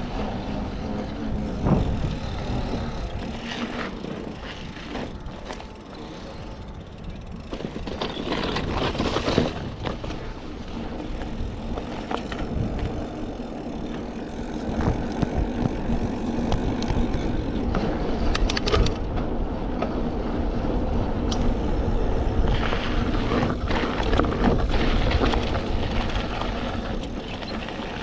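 A Schwinn Axum mountain bike being ridden: wind buffets the microphone over a steady rush of tyre and road noise, with a few sharp clicks along the way.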